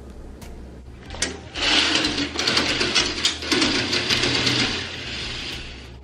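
Curtain drawn open along its rail: a fast rattling slide of the runners, starting about a second in and lasting about four seconds.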